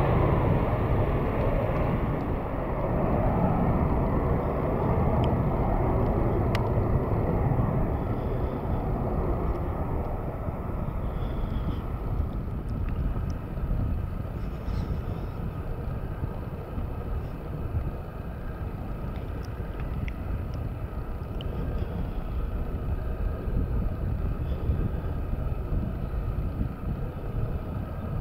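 Boeing 747-8F's four GEnx-2B turbofan engines at climb power, a broad jet rumble that slowly fades as the freighter climbs away. The high hiss drops off in the first couple of seconds, leaving a low rumble.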